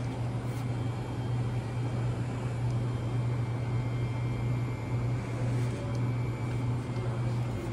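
Steady low hum with an even hiss over it: the background drone of a large supermarket's ventilation and refrigeration, with a few faint ticks.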